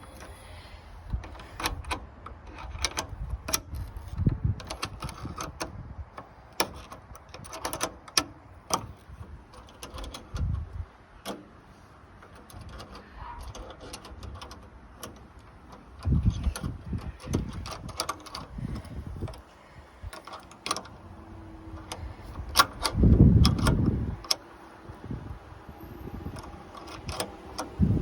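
Metal hand tool clicking and clinking against the nut as the bonnet release cable's fitting is tightened, with scattered sharp ticks and several dull knocks and bumps of handling around the car's body.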